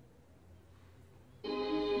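Near silence with a faint low hum, then background music starts suddenly about one and a half seconds in: a held chord of many sustained notes.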